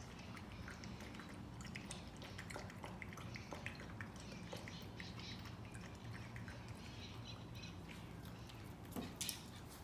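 A Parson Russell Terrier puppy lapping water from a bowl: a run of small, irregular wet clicks. A couple of louder clicks come near the end as it leaves the bowl.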